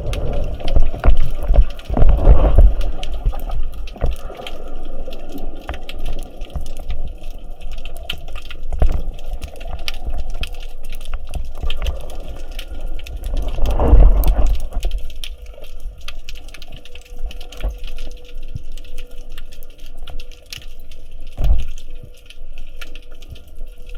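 Water sloshing and bubbling against a diving camera, with two loud surges, one in the first three seconds and another around fourteen seconds in, over a constant fine crackling.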